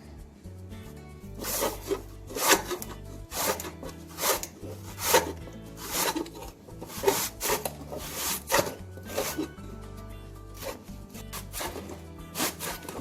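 Peeled raw banana being cut into slices: short rasping strokes, roughly one a second, over steady background music.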